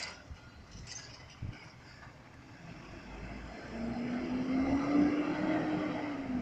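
A motor vehicle engine speeding up: a rising hum grows louder about four seconds in, peaks, then eases off slightly near the end.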